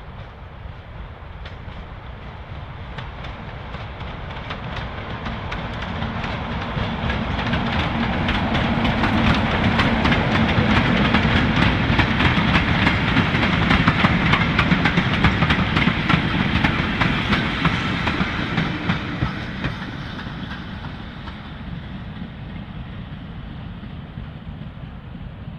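Class 33 diesel-electric locomotive hauling a freight train of vans past at close range. The engine drone rises as it approaches, and the wagons' wheels clatter over the rail joints, loudest in the middle before the train fades away.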